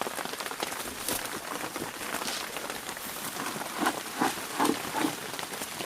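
Heavy rain falling and pattering on surfaces as many fine drop ticks, with a few short louder knocks about four to five seconds in.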